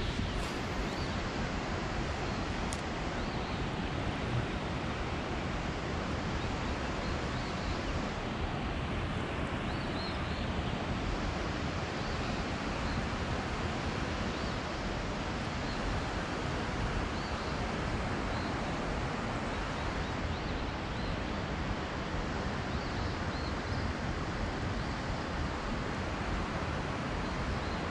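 Steady rushing of moving water, an even, unbroken noise at a constant level.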